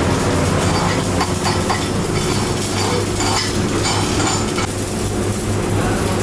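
Wire-fed (MIG/MAG) welding arc crackling and sizzling steadily, over a low steady hum from the welding machines.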